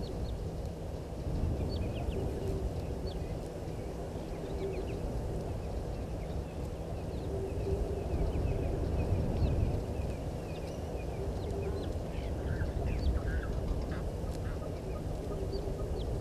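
Egyptian goose goslings peeping: scattered short, high-pitched peeps throughout, over a steady low rumble.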